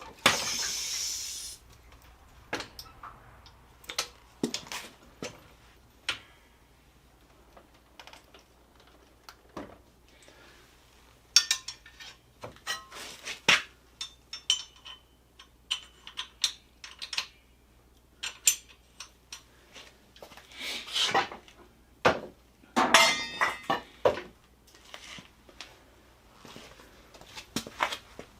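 Intermittent metal clinks, clanks and knocks from a jack and hand tools being handled while a motorcycle is jacked up. A short scraping sound comes at the start, and there are busier clusters of clanks around halfway and again later on.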